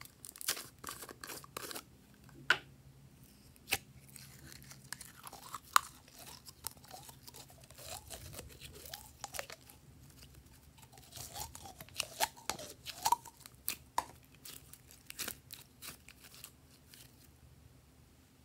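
Glossy slime squeezed out of a plastic container and stretched by hand: irregular sticky pops and clicks, with a few short squeaks in the middle.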